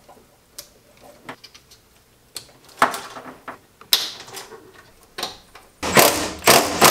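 Scattered clicks and knocks of a wiring harness and plastic connectors being handled. Near the end a cordless Milwaukee Fuel power tool runs briefly a few times on a fastener.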